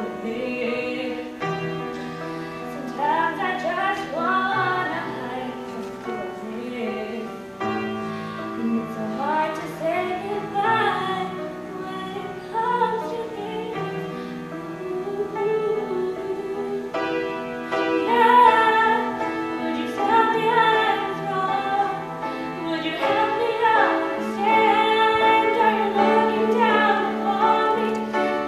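A girl singing a slow song into a microphone while accompanying herself on a grand piano, her voice wavering and gliding over sustained piano chords that change every couple of seconds.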